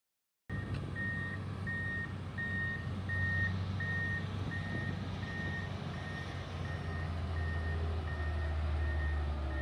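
Komatsu GD535 motor grader's diesel engine running with a steady low drone while its reversing alarm beeps evenly at one high pitch, about one and a half beeps a second. The sound starts about half a second in.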